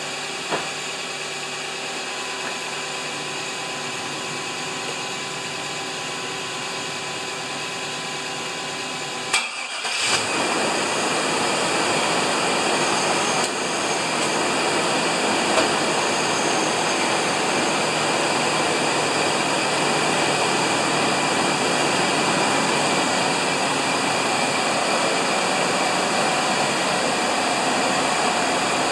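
GM pickup truck's Vortec engine idling steadily, shortly after its first start following months of storage. About nine seconds in there is a click, after which the running sound is louder, with more of a rush.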